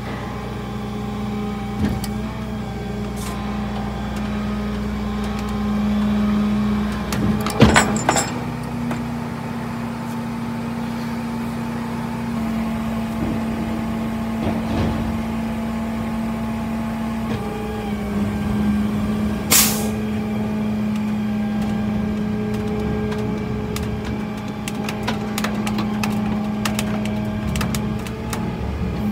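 Flatbed tow truck's engine running steadily, its pitch shifting slightly a couple of times. A clatter of sharp knocks comes about a quarter of the way in, and a short hiss of air about two-thirds of the way through.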